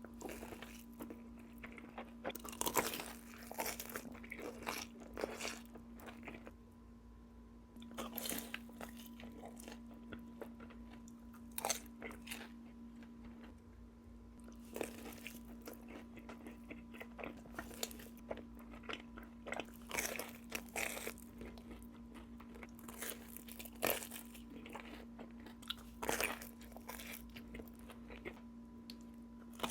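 Close-miked biting and chewing of Little Caesars food, with sharp crunches every second or two amid quieter mouth sounds. A faint steady hum runs underneath.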